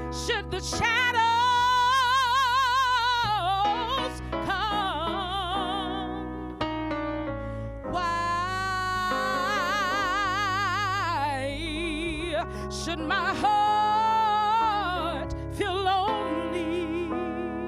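A woman singing a song with instrumental accompaniment, holding several long notes with a wide vibrato.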